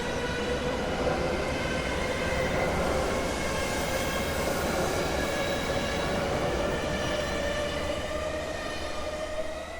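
Train running past on the rails: a steady rumble with a whine of several tones that slowly rises in pitch, fading away at the very end.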